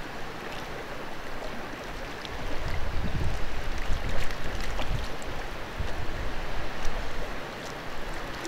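Mountain stream running steadily, with wind buffeting the microphone in low gusts a few times.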